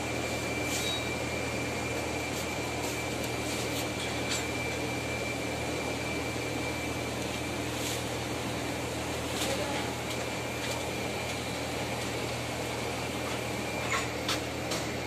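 Steady hum of running machinery and fans, with a faint high whine that stops about seven seconds in and a few light taps.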